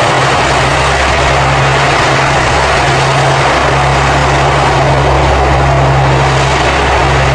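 C-130 Hercules transport's four Allison T56 turboprops running loud: a broad rushing roar over a steady low propeller drone.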